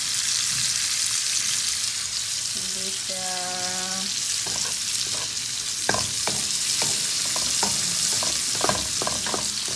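Vegetables sizzling in a hot frying pan with a steady hiss while being stirred with a spatula; from about six seconds in, a quick run of knocks and scrapes of the spatula against the pan. A short held hum-like tone sounds about three seconds in.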